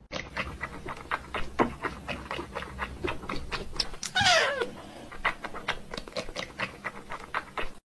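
Quick, irregular clicks or taps, several a second, with one falling animal call about four seconds in.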